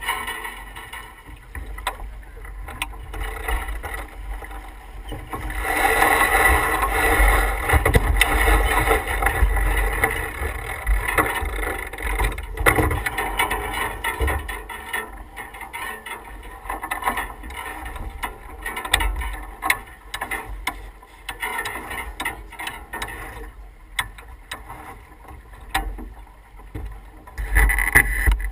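S2 9.1 sailboat under sail: water rushing along the hull and wind buffeting the microphone, with scattered clicks and knocks of deck gear. The rushing grows louder for several seconds from about six seconds in to about fourteen.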